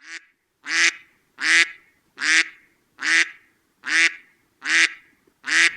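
Eight evenly spaced duck quacks, about one every 0.7 seconds, with dead silence between them.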